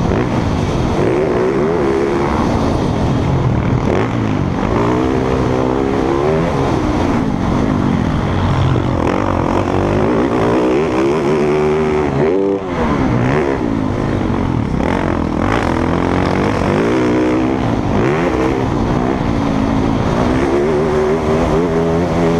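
MX1-class motocross bikes racing, their engines revving up and down continuously, several at once with overlapping pitches. The engine noise dips briefly about halfway through.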